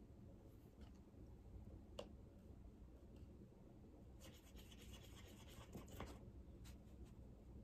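Faint scrubbing of a wet paintbrush in a pan of watercolour paint, from about four seconds in for about two seconds, with a single light tick about two seconds in.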